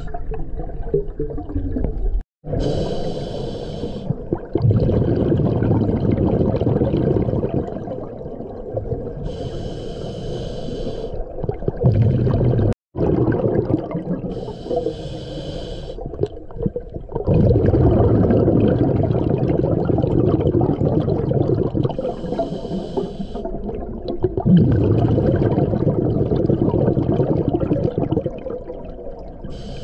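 Scuba diver breathing through a regulator underwater. A short hissing inhale comes every six to eight seconds, five times, and each is followed by a long rush of exhaled bubbles. The sound cuts out for an instant twice.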